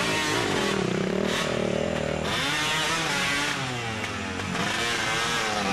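Several dirt bike engines revving up and down together, their pitch rising and falling repeatedly, as the bikes work under load on a steep hill climb.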